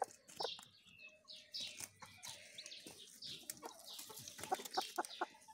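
A hen clucking in short, scattered calls, with small clicks and rustles between them.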